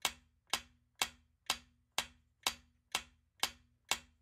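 Countdown timer sound effect ticking steadily, about two sharp ticks a second, each with a brief low tone under it, marking off the seconds left to answer a quiz question.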